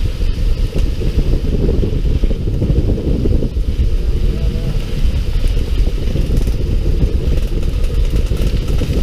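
Fishing boat's engine running, a steady low rumble.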